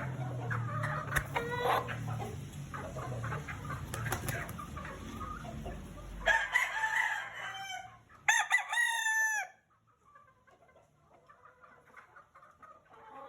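Chickens clucking, then a rooster crows once, briefly and loudly, about eight seconds in, followed by soft clucking.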